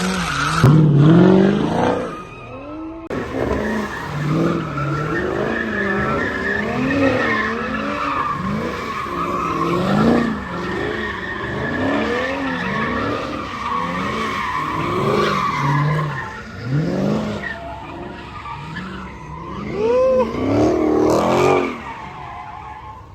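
Drift car engine revving up and down over and over, with tyres squealing as the car slides sideways. A sharp rev rises near the end.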